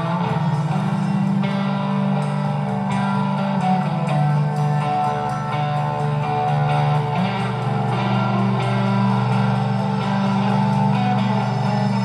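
Space-rock band playing an instrumental passage: strummed guitars over long-held bass notes that shift every second or two.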